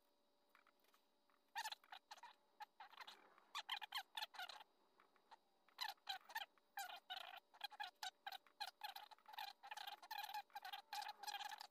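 Short, irregular scratchy strokes of a thin blade and fine sandpaper worked down inside a vintage pocketknife's brass-lined frame, scraping out lint and grit. The strokes come in quick clusters with brief pauses between.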